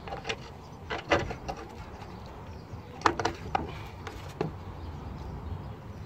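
Irregular knocks and clicks of metal exhaust parts being handled while a rear-silencer hanger mount is fitted under the car. There are a few close together about a second in and again around three to four seconds in, over a low steady rumble.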